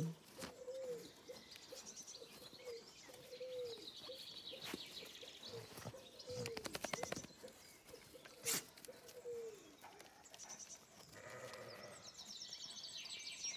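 A puppy whimpering: short, thin, high whines about once a second, each dipping at its end. A brief rattle comes about halfway through.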